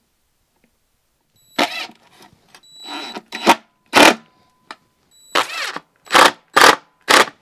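Cordless drill driving screws into the wall, run in about seven short trigger bursts of a second or less each.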